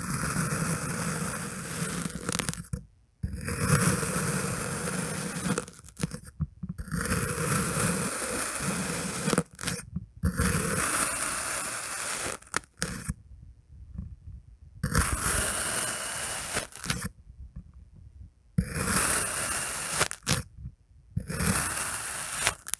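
Knife blade slicing through a dome of tan kinetic sand, a gritty, crunchy scrape drawn out over one to three seconds per cut. About seven cuts in a row, with short pauses between them.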